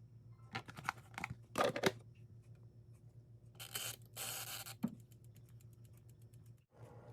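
Kitchen handling noises: a quick run of clicks and scrapes, then two short rustling bursts, then faint regular ticking, over a steady low hum.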